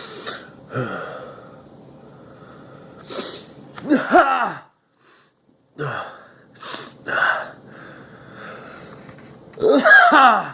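A man sniffing pepper up his nose, with short sniffs, wheezy breaths and strained voiced outbursts. The two loudest, about four seconds in and near the end, are like sneezes set off by the pepper.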